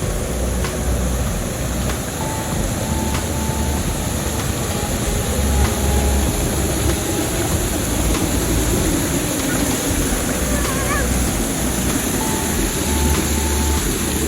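Waterfall close by: a steady, loud rush of falling water. A few short, high chirps sound faintly about ten seconds in.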